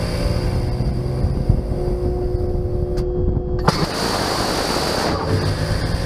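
Phalanx CIWS six-barrel 20 mm Gatling gun firing in bursts, a fast buzzing rattle, over a steady whine.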